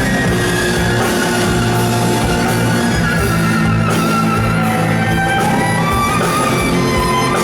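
A band playing an instrumental rock passage: held bass and chord notes under a wavering lead melody line, with no singing.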